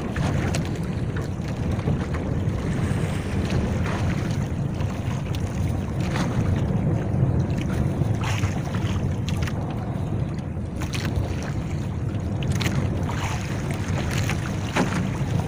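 Wind rumbling on the microphone over sea water sloshing against a small wooden outrigger boat's hull and bamboo float, with scattered sharper splashes in the middle.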